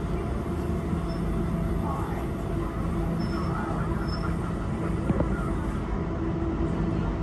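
Brisbane electric suburban train running: a steady rumble of wheels on the rails with a low, steady hum.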